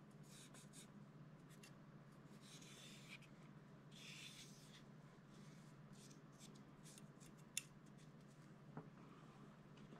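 Faint scratchy rubbing of a cotton swab wiping excess oil from inside a pistol slide, in short strokes. A single sharp click about two thirds of the way through, and a smaller one a second later, over a faint steady hum.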